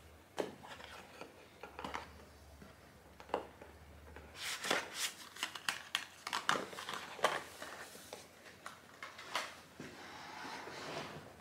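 Cardboard of a Kiehl's advent calendar being handled as a day's compartment is opened and a small cardboard box is pulled out: a sharp click about half a second in, then a busy run of scraping, rustling and light taps in the middle.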